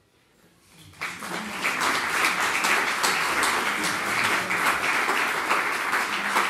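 Small audience applauding: the clapping starts about a second in, builds quickly, and cuts off abruptly at the end.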